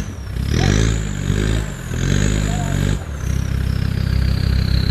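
Land Rover Discovery TD5's five-cylinder turbodiesel revving in two surges under load on rough ground, with a high whine that rises and falls with the revs. About three seconds in it drops back to a steady low-rev run.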